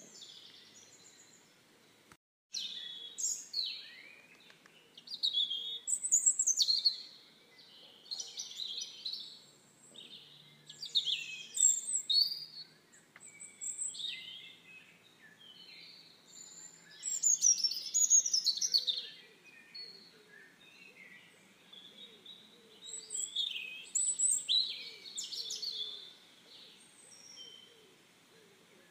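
Small songbirds chirping and singing in short, high-pitched phrases, with brief gaps between them.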